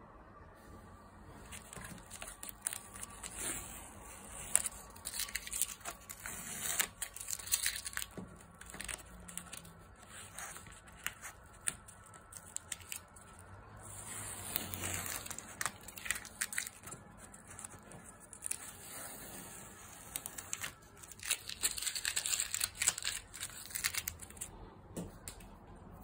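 Masking tape being peeled off the edges of a watercolour painting: crackly ripping and tearing in several bouts, with quieter pauses between.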